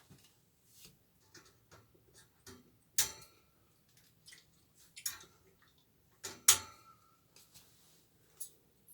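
Wire-tie (cable-tie) ends being snipped off: sharp snips, the two loudest about three and six and a half seconds in, with small clicks and handling noise between.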